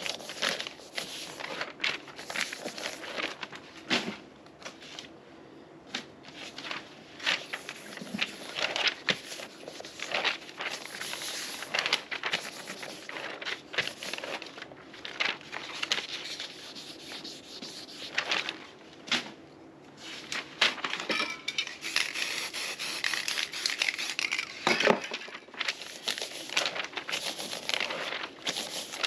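A sheet of paper being pressed and rubbed by hand against a spray-painted board, rustling and crinkling in irregular crackles.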